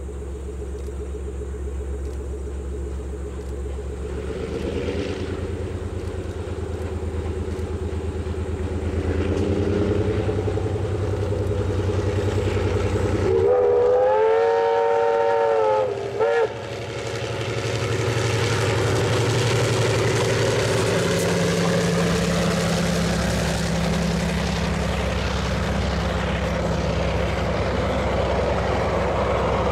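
Da class diesel-electric locomotive approaching with its engine noise steadily growing louder, sounding its horn for about three seconds midway with a short second toot right after, then the train running past with steady wheel and rail noise.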